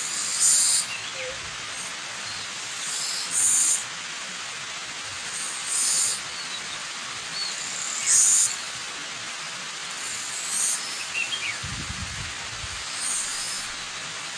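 Steady rushing of a waterfall, with a bird repeating a short high call about every two and a half seconds and fainter chirps from other birds. A short low rumble comes near the end.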